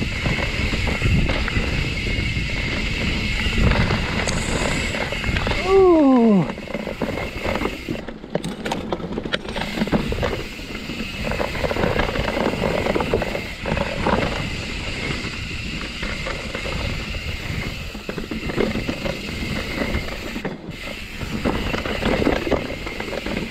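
Mountain bike clattering and rattling as it rolls over a rocky forest singletrack, with continuous tyre and trail noise and many small knocks. About six seconds in, a short voice-like cry falls steeply in pitch.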